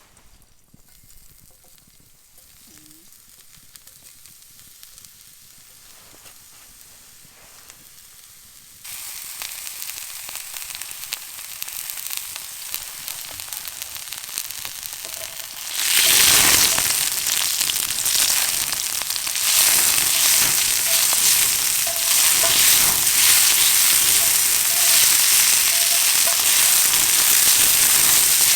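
Food frying in a pan over a campfire: quiet at first, then a loud, steady sizzle with crackling starts suddenly about halfway through and carries on.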